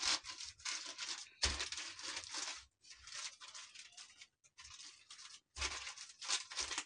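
Polythene sheet rustling and crinkling under a wooden rolling pin as dough is rolled out through the plastic, in about five back-and-forth strokes with short pauses between them.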